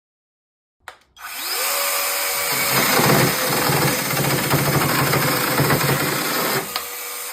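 Mini cordless electric chainsaw starting with a click and spinning up with a rising whine, then running loud and uneven for about four seconds. Near the end it settles to a smooth steady whine, then cuts off suddenly.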